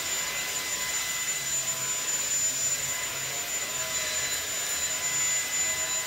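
YOKEKON cordless stick vacuum's brushless motor running steadily, a high whine over rushing air, while its motorized brush head is pushed back and forth over a fabric sofa cushion.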